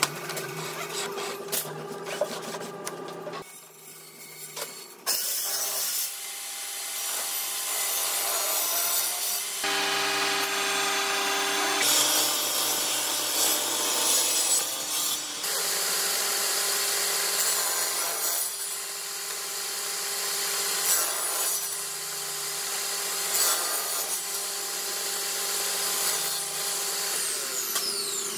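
Table saw running and cutting through wood board, cut after cut: a steady motor tone under the rasping hiss of the blade in the wood.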